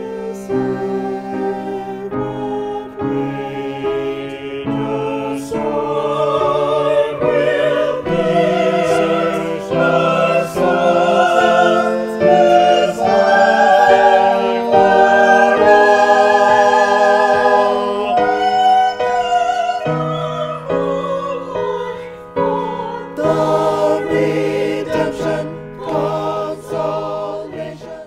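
A small mixed choir of sopranos, altos and tenors singing with piano accompaniment, swelling loudest in the middle and cutting off at the end.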